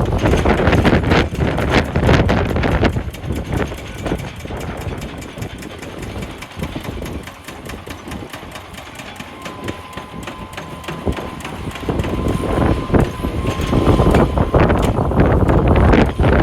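Heavy wheel loader running, its engine noise mixed with many sharp knocks and clatter of rocks. It is quieter through the middle, where a steady high tone sounds for a few seconds, and loud again near the end.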